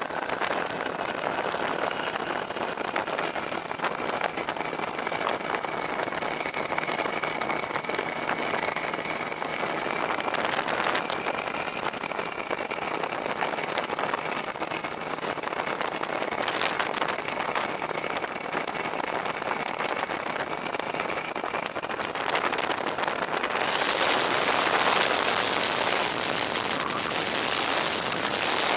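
Ultralight aircraft's engine and propeller running in flight, under a heavy rush of air past the open cockpit, with a faint steady whine on top. About 24 seconds in, a louder rushing noise takes over as the aircraft nears the ground.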